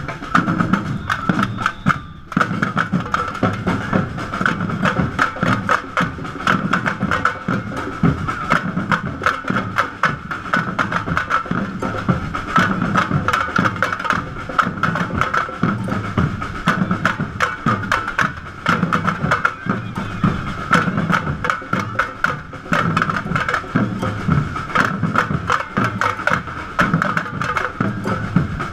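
Drum group playing a fast, steady rhythm on large drums, with dense sharp strokes and a brief break about two seconds in.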